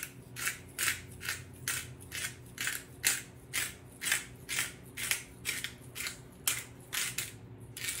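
Hand-twisted pepper mill grinding black peppercorns, in a steady rhythm of about two grinding strokes a second.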